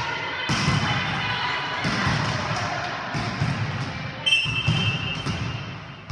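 A ball bouncing with irregular thumps on a hardwood gym floor, with players' voices in the background. A brief high tone lasting about a second comes about four seconds in.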